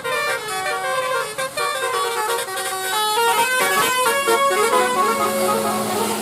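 Indonesian bus 'telolet' Basuri musical air horn playing a quick melody, several horn notes sounding together and changing pitch in steps several times a second.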